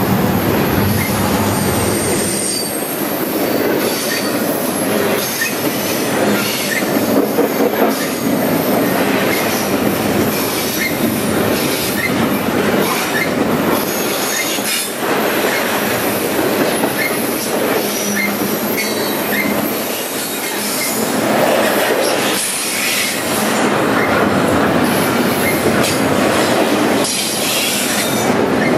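Norfolk Southern double-stack intermodal train's freight cars rolling past at close range, a loud, steady rumble and clatter of steel wheels on the rails with faint high-pitched wheel squeal.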